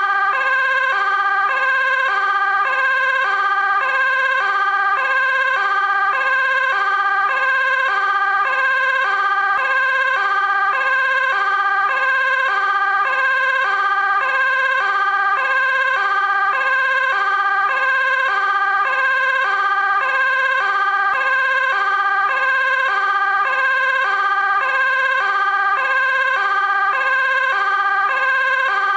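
Dutch fire engine two-tone siren sounding continuously at a steady volume, alternating evenly between a high and a low pitch.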